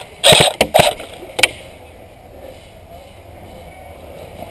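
Airsoft gun firing two short rapid bursts in the first second, then a single shot about a second and a half in, followed by low steady background noise.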